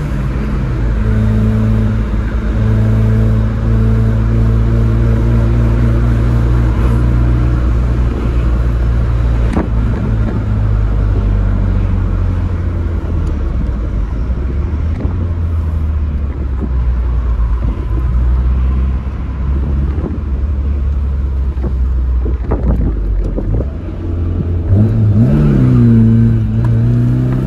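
Tofaş Doğan SLX engine running loudly at a steady pitch, settling lower about eight seconds in, then revving up and down near the end.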